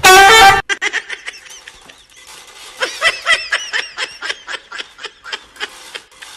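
A loud pitched cry lasting about half a second, then a person laughing in quick, breathy bursts, densest about three seconds in.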